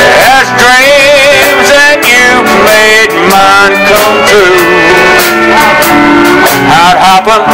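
Live country band playing a slow country song: electric guitars, pedal steel guitar and drum kit, with wavering, bending lead lines.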